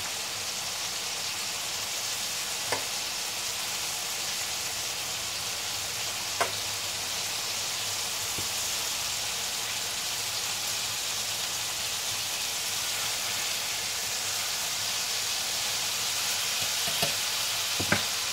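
Chicken sizzling as it fries in a pan: a steady hiss with a few small pops.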